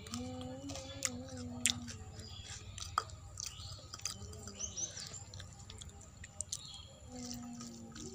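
Close-up eating sounds: chewing with many short wet mouth clicks, and a hand squishing rice and lentil dal on a steel plate. A low drawn-out hum sounds twice, near the start and again near the end.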